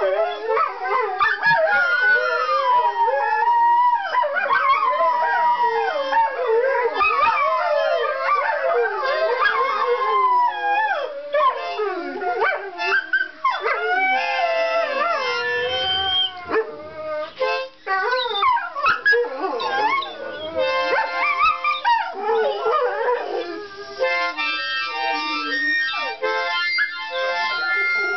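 Several greyhounds howling together in long, overlapping howls that slide up and down in pitch, along with a harmonica playing chords. The harmonica chords stand out most near the end.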